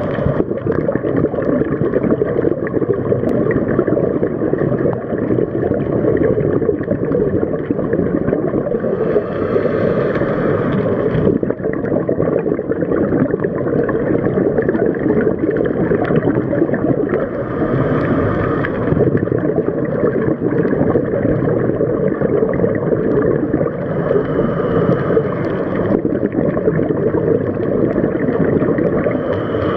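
Underwater sound on a scuba dive: a steady dull rush of water noise, broken four times, about every seven seconds, by a longer hissing gurgle of regulator exhaust bubbles as the diver breathes out.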